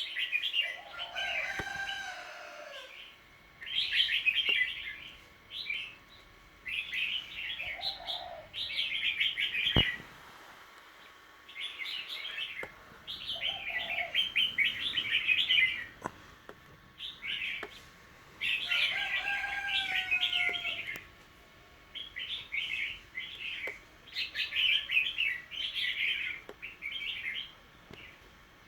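Small birds chirping in repeated bursts of rapid high notes with short pauses between. Twice a lower call that slides in pitch sounds under the chirps.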